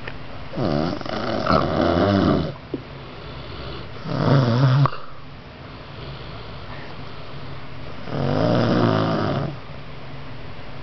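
A child snoring loudly in sleep: three snores a few seconds apart, the first and last long and the middle one short.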